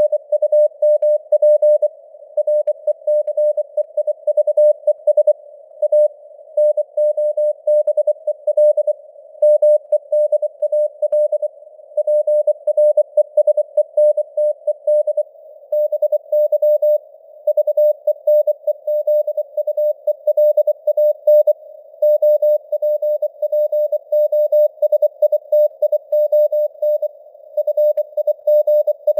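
Morse code sent at 24 words per minute: a single steady-pitched beep keyed on and off in quick dots and dashes, in a narrow band of simulated radio hiss, with the signal strength fading up and down (QSB).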